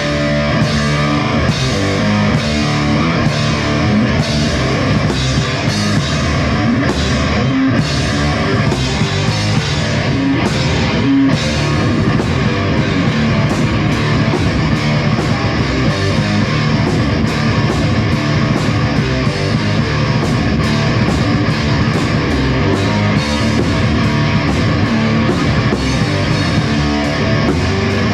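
Rock band playing on guitar and drum kit, a steady, loud instrumental passage with a regular drum beat.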